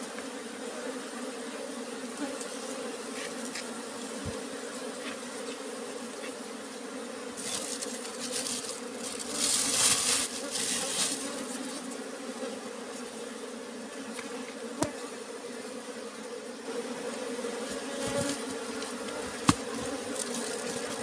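Swarm of honeybees buzzing around their exposed comb, a steady hum. About eight seconds in comes a few seconds of hiss, and there are a few sharp clicks.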